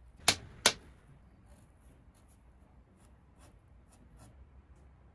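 Two sharp clicks in quick succession about a third of a second in, then faint intermittent scratching of a felt-tip marker drawing lines on a cork coaster.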